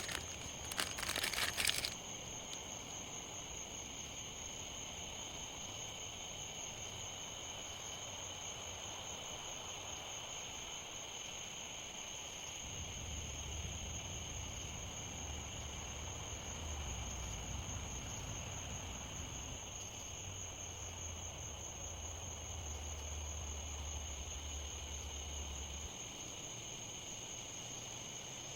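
Steady insect chorus (two high, constant trilling tones) over an even hiss of rain. Crinkling and crackling for the first two seconds, and a low rumble from about halfway to near the end.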